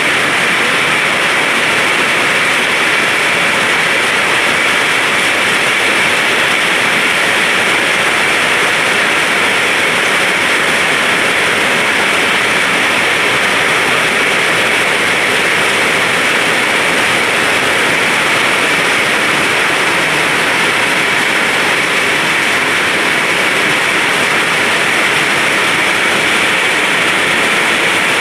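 Rain falling steadily, a loud, even hiss that does not let up.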